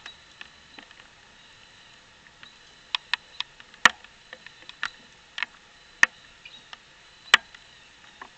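A dog eating at a metal food bowl inside a wire kennel trap: scattered sharp clicks and clinks, irregular and about half a second to a second apart, starting about three seconds in.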